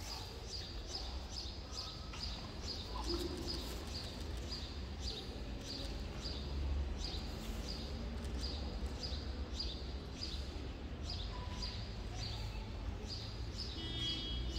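A small bird chirping over and over, short high chirps about twice a second, over a steady low rumble.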